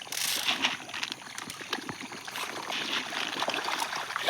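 Water trickling and splashing at a fish pond, a steady run of small splashes and drips.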